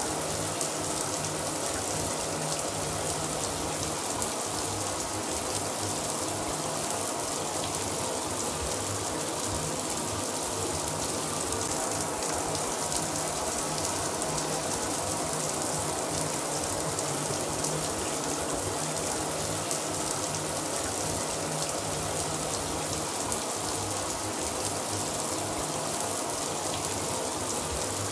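Shower running: a steady spray of water falling, an even hiss that never lets up.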